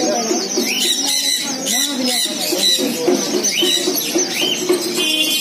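A chorus of many caged birds calling: repeated sharp chirps and screeches over lower, wavering calls.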